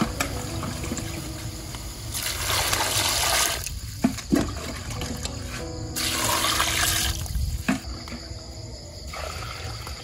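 Water poured from a plastic dipper into a large stainless steel pot of cow legs, splashing in two pours of about a second and a half each. Between the pours come a few short knocks.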